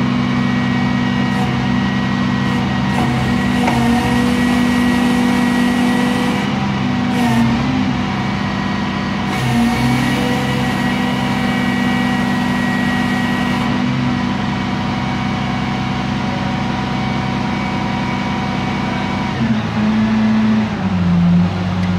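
Rear-loader garbage truck's engine running at raised speed to drive the hydraulic packer as it cycles, a steady pitched hum. The note dips briefly twice in the first half and steps down in pitch near the end as the hydraulic load changes.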